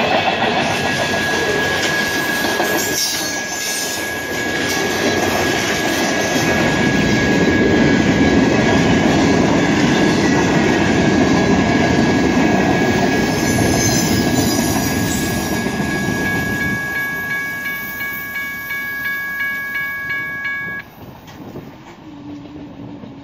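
Freight train rolling through a grade crossing: steel wheels rumbling and clacking over the rails while the crossing's warning bell rings steadily. The rumble fades as the last cars pass, and the bell cuts off near the end.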